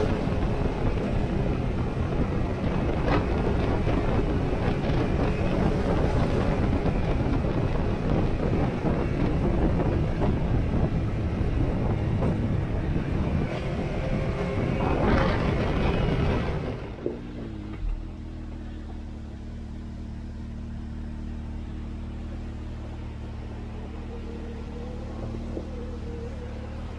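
Can-Am Maverick DS Turbo side-by-side driving on a gravel trail: engine running under way with rough road and wind noise. About two-thirds in it slows to a stop, and the level drops to a steady idle.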